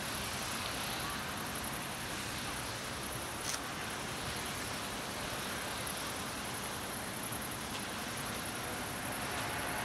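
Steady outdoor ambience: an even hiss with a faint, fast, high ticking running through it, and a single sharp click about three and a half seconds in.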